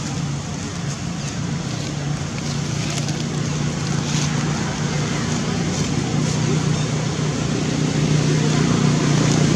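A motor engine running with a steady low drone that slowly grows louder, with faint scattered rustles over it.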